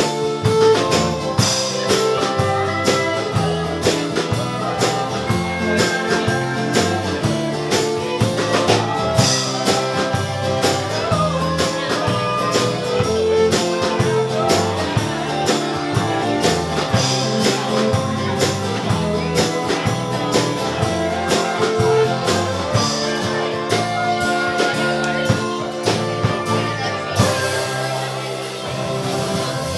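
Live folk-bluegrass band playing an instrumental passage: strummed acoustic guitar, bowed viola and electric bass in a steady rhythm, settling into a held closing chord near the end.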